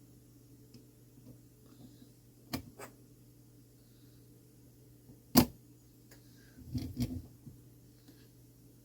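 Light metallic clicks and taps as brass parts of a mantel clock movement are handled and the top plate is fitted over the gear train. There are a few scattered clicks, one sharp and loud just past halfway, and a small cluster soon after, over a faint steady hum.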